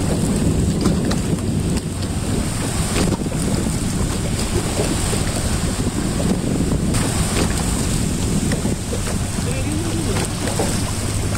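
A small fishing boat's motor running steadily at trolling speed, with wind buffeting the microphone and water rushing past the hull.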